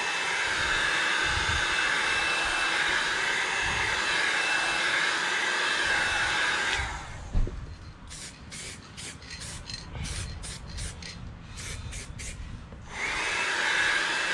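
Handheld electric heat gun running with a steady fan hiss and faint whine, switched off about seven seconds in, followed by a sharp click. Then an aerosol can of primer sprayed in a quick series of about a dozen short hissing bursts, a light coat dusted on a little at a time, before the heat gun starts up again near the end.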